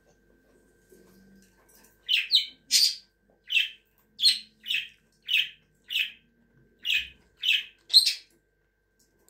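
Budgerigar chirping: a run of about eleven short, sharp, high calls, roughly two a second, starting about two seconds in.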